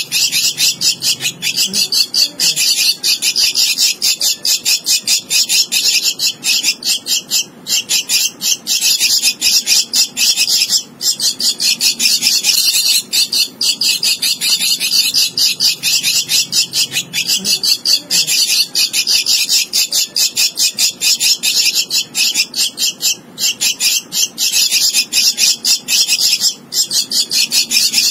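Javan myna chick begging for food: a rapid, almost unbroken string of harsh, high calls, many a second, broken only by a few brief pauses.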